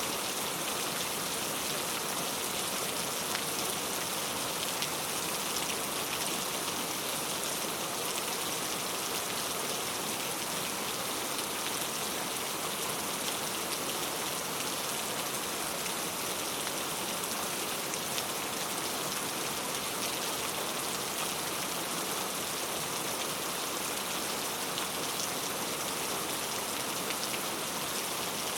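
Heavy rain falling steadily and spattering on surfaces, an even hiss with many small drop ticks.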